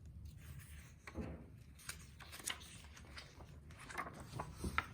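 Pages of a picture book being handled and turned: faint paper rustling with a scatter of small clicks and taps.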